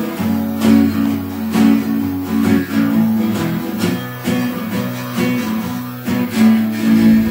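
Acoustic guitar strummed in a steady rhythm, with a harmonica playing long held chords over it.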